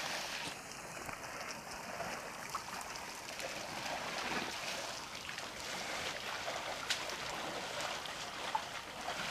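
Water splashing and trickling as a herd of African elephants drink at a waterhole, trunks dipping and drawing water. The sound is a steady wash, with two sharp ticks in the second half.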